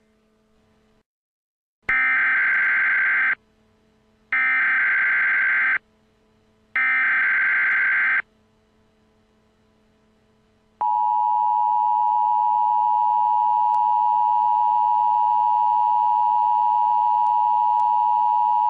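Emergency Alert System header: three loud bursts of screeching digital data tones, each about a second and a half long, followed a couple of seconds later by the EAS attention signal, a harsh steady two-tone beep held for about eight seconds.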